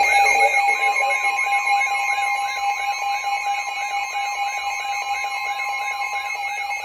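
Weather radio alert alarm: a warbling siren of about three sweeps a second over steady tones, with a steady tone near 1 kHz, the NOAA Weather Radio warning alarm tone, coming in about a second in. It signals an incoming warning broadcast, here a tornado warning.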